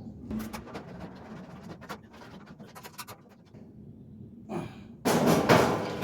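Light clicks and knocks of metal grill parts being handled, then a sudden loud burst of noise about five seconds in that carries on to the end.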